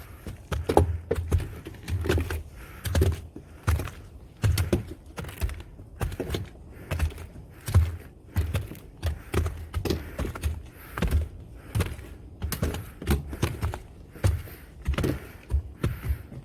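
A hiker's footsteps on a snowy mountain trail: a thud with a crunch at each step, at a steady walking pace.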